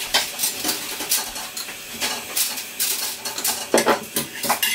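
Kitchen dishes and cutlery clattering: a run of irregular light knocks and clinks as utensils and pans are handled.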